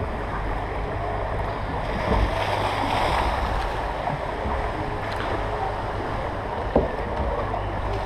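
Water rushing and lapping around a MACK Rides log flume boat as it floats along its water channel, swelling for a second or so a couple of seconds in. A single sharp knock sounds near the end.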